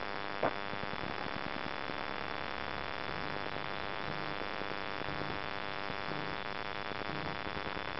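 Steady, even buzz of insects in the scrub, with a thin high note held throughout over a faint hiss; a single small tap about half a second in.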